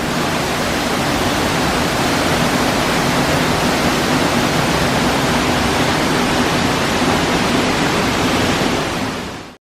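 Waterfall rushing, a loud steady noise of falling water that fades out quickly about nine and a half seconds in.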